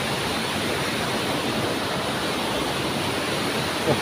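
Steady rush of a fast-flowing river over rocks, an even hiss of water with no distinct splashes.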